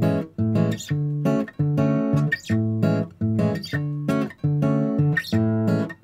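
Background music: acoustic guitar chords strummed in a steady rhythm.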